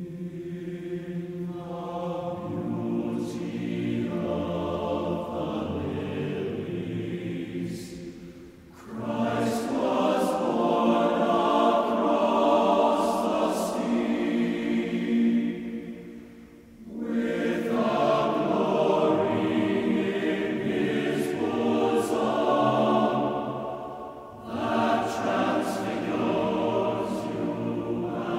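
Background music of voices singing in a choir, with sustained chords in phrases that break off briefly about every eight seconds.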